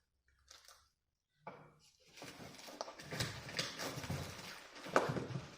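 Handling noise from unboxing a car amplifier: rustling and scraping of packaging with small clicks, getting busier about two seconds in, and a sharp knock near the end.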